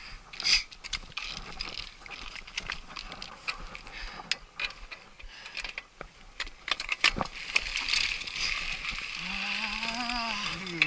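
Trek Superfly mountain bike rattling and clicking as it is ridden over a rough, rocky dirt trail, with irregular knocks throughout and a hiss of brush or wind. Near the end a drawn-out voice-like sound rises and falls in pitch.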